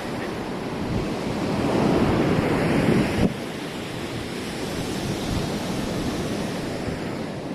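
Ocean surf washing on a sandy beach, mixed with wind on the microphone. A louder surge builds for about two seconds and cuts off suddenly about three seconds in, then a steadier, quieter rush follows.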